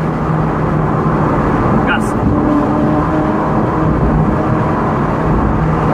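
Ferrari 458's 4.5-litre V8 engine running at a steady cruise, heard from inside the car over road and wind noise, with a short click about two seconds in.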